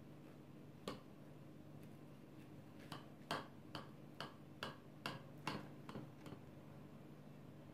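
A knife cutting down through a walnut-topped apple cake in a glass baking dish, making faint sharp clicks: one about a second in, then a run of about nine at two or three a second.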